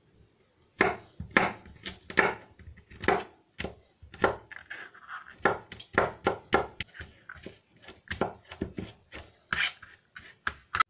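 Kitchen knife chopping garlic cloves on a plastic cutting board: an uneven series of sharp knocks, two to three a second.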